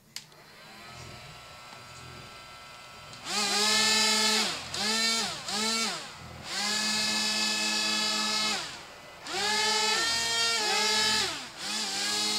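Small electric fan motors of a toy hovercraft whining. After a click near the start and a faint steady hum, the motors run in a series of bursts from about three seconds in, each lasting from half a second to two seconds. Each burst rises in pitch as the fans spin up and falls away as they stop.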